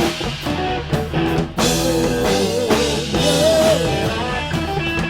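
Rock band playing an instrumental passage between sung lines, with electric guitar, bass and drum kit. A lead line bends in pitch about three seconds in.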